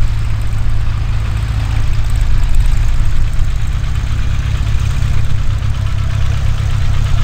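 Cessna 172R Skyhawk II's four-cylinder Lycoming piston engine and propeller running at low power on the ground, a steady low drone with a rapid even pulse.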